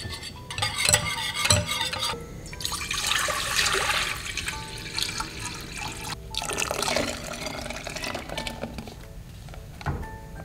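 Water pouring and splashing in a kitchen, in three spells of a few seconds each, with a couple of knocks during the first.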